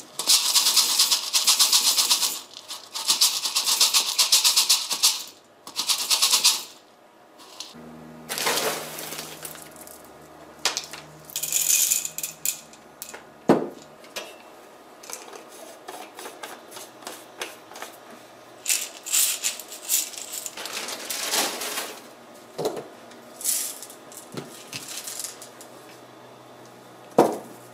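Small mineralized ceramic balls pouring through a plastic funnel into a clear inline filter cartridge: a dense rattle lasting about six seconds. After it come scattered clicks and knocks as the filled cartridge is handled and set down.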